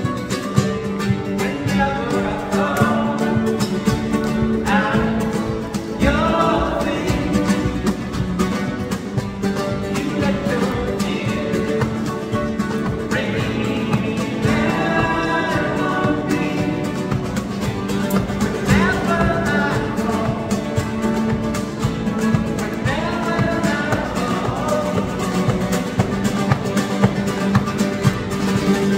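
Two nylon-string guitars playing live in a flamenco style, a plucked melody over strummed chords, with a steady low note sustained underneath.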